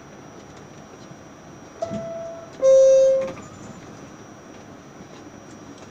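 R68A subway car's two-tone door chime: a higher tone about two seconds in, then a louder, lower one. It is the warning that the doors are about to close.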